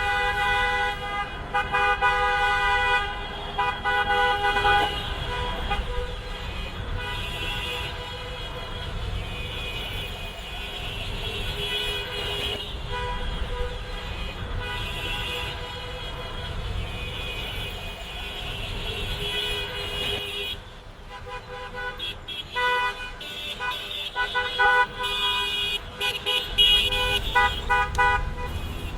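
Many car horns honking in a traffic jam, overlapping long and short toots at different pitches over the low rumble of traffic. The honking thins out in the middle, with a brief lull about two-thirds of the way in, then builds up again near the end.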